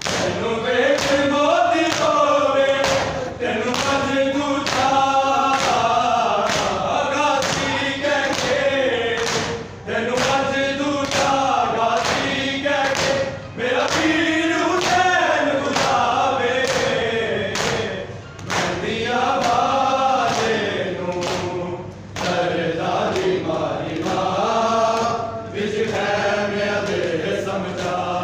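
Group of men chanting a noha together in a Muharram mourning lament, with a steady beat of open-hand chest-beating (matam) about once a second. The sung phrases rise and fall with short breaks every few seconds.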